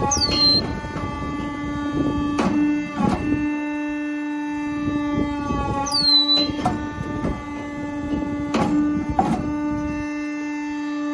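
POR Bricc Junior Etienne sawdust briquetting machine, with a 5.5 kW main motor, running in its work cycle. A steady hum runs throughout. About every six seconds a brief high squeal falls in pitch, and a pair of sharp knocks follows a couple of seconds later.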